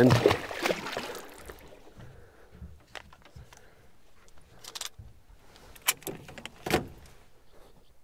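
Gear being handled in a fishing boat: a short rush of noise at the start, then scattered clicks and knocks against the boat.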